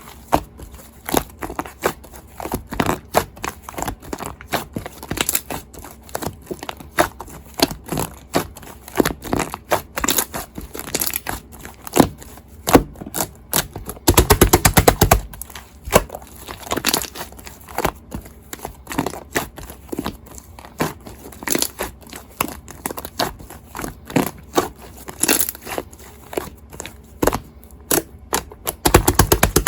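Shaving-foam slime being squeezed and pressed by hand, giving a steady run of sharp sticky pops and clicks. About fourteen seconds in, and again near the end, the pops come in a fast rattling burst lasting a second or so.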